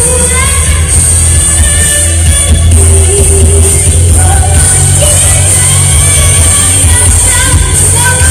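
A boy singing into a microphone over loud backing music with a heavy bass.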